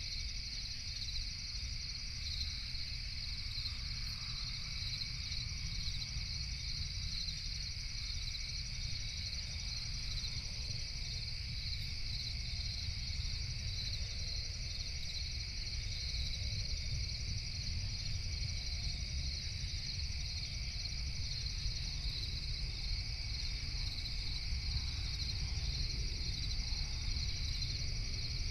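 A dense chorus of night crickets chirring steadily, over a constant low rumble.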